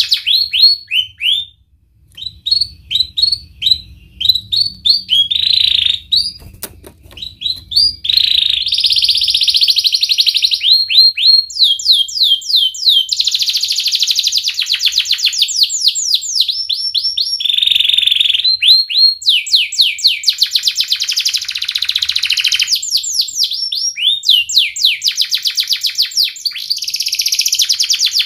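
Domestic canary singing in full voice: a long song of fast trills and rolls, each phrase a rapid string of repeated rising notes, running almost without pause. This kind of song is used as a tutor recording for young canaries learning to sing.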